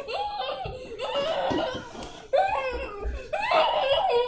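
Several people laughing, in a few bouts one after another.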